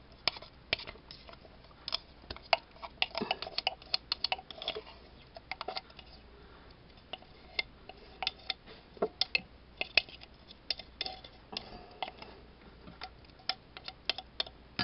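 Irregular sharp clicks and taps of plastic against glass as crushed strawberries are emptied from a food chopper's plastic bowl into a glass mixing bowl, sometimes several in quick succession.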